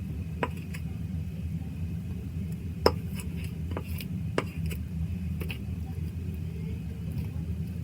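A few light knocks and clinks of a ladle and containers being handled on a table while mixing slime, about five scattered taps with one sharper knock about three seconds in, over a steady low hum.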